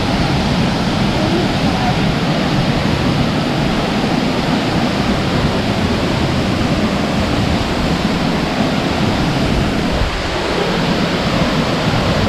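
Waterfall pouring steadily close by: a loud, even rush of falling water that barely changes, dipping slightly for a moment about ten seconds in.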